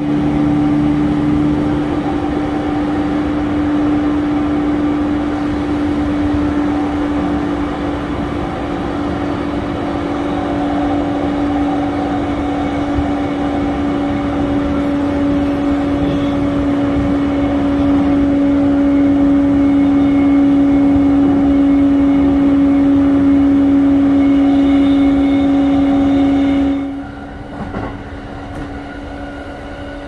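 E235-series electric train running at a steady speed, heard from inside the car: a steady hum over the rumble of the wheels on the rails. About 27 seconds in the sound drops abruptly to a much quieter level.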